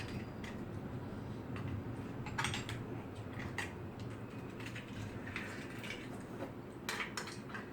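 Eating utensils clicking and tapping against dishes, a few scattered short clicks over several seconds.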